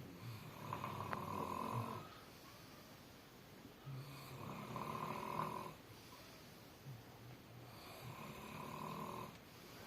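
Snoring: three long snores about four seconds apart, each lasting well over a second.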